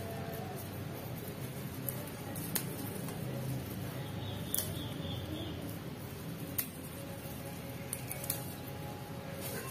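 Fresh celery (seledri) being picked apart by hand: a few small, sharp snaps of stems and leaves breaking, a second or two apart, over a quiet steady background.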